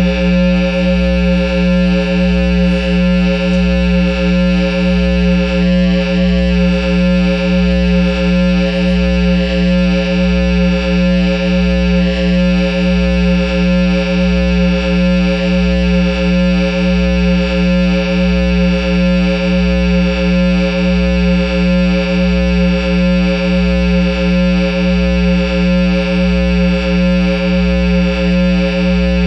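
A guitar amplifier stack, a Line 6 head driving a Peavey speaker cabinet, puts out one steady, loud, low drone with many overtones. It holds the same pitch without change, with a slow, even pulse in loudness a bit more than once a second.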